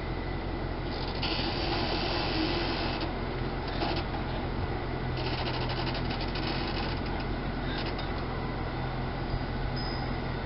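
An engine running steadily with a low hum, with stretches of hissing noise over it about a second in and again around five seconds in.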